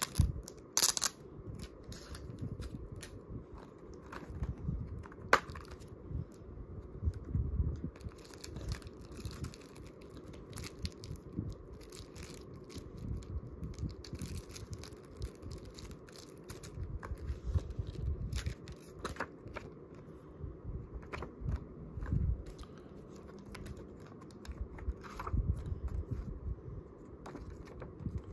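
Hands unwrapping a Blu-ray case: plastic shrink wrap crinkling and tearing, with scattered sharp clicks and low bumps as the case and its contents are handled. The sharpest clicks come right at the start and again about five seconds in.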